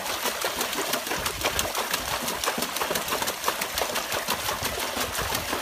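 Water splashing rapidly and continuously as a dog paddles its front legs in a plastic tub, a fast run of sharp splashes.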